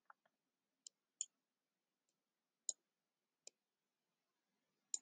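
Near silence broken by about five faint, sharp clicks at uneven intervals: computer mouse clicks while a fraction is hand-drawn on screen.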